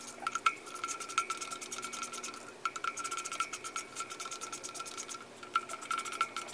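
Ratcheting hand driver clicking rapidly as it runs in the bolts of a brake rotor, in runs broken by short pauses about two and a half and five seconds in.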